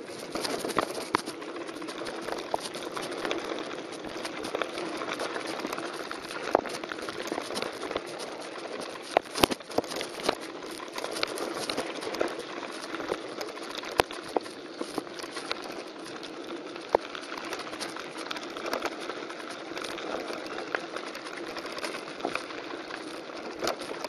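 Mountain bike rolling down a dry, gravelly streambed: a steady crunch and rattle of tyres and frame over the rough ground, with sharp knocks from bumps, the loudest about nine seconds in.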